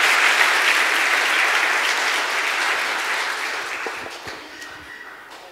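Audience applauding, the clapping dying away over the last two seconds, with a few soft knocks as it fades.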